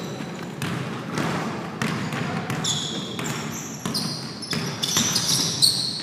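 Pickup basketball game on a hardwood gym floor: a basketball being dribbled and players' footfalls, with many short, high-pitched sneaker squeaks from about halfway through.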